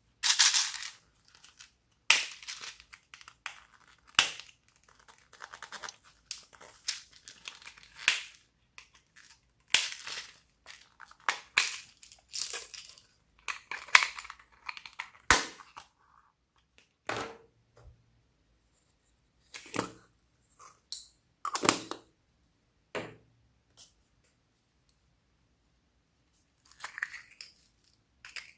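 Slime being mixed and worked by hand, giving irregular crackling and sticky popping noises in short bursts with brief pauses between, and a few sharp clicks.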